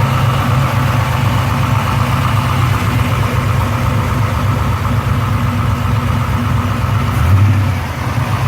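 LS1 383 cubic-inch stroker V8 in a Holden VL Commodore idling with the bonnet open, a steady low pulsing run. It swells briefly near the end.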